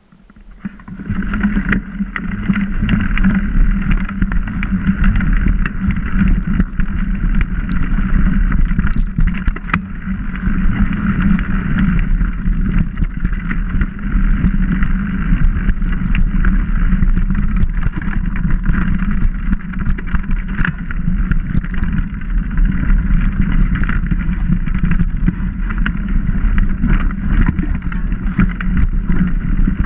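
Mountain bike ridden over a dirt and leaf-litter trail, heard through a bike-mounted action camera: a loud, steady, muffled rumble of tyres and wind, scattered with sharp clicks and knocks. It starts about a second in as the bike gets moving.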